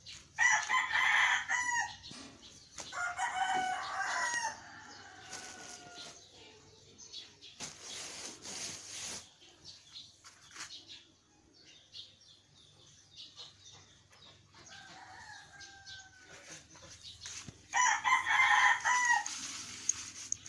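Rooster crowing several times: loud crows near the start and again near the end, with fainter, falling calls between. A short rustling noise about halfway through.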